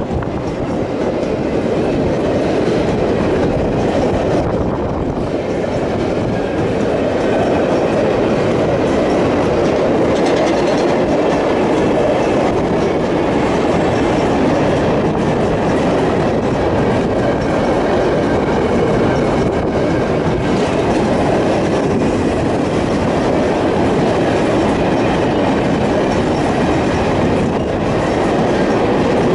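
Freight train of steel hopper wagons rolling past at close range: a steady, continuous rumble of wheels on the rails.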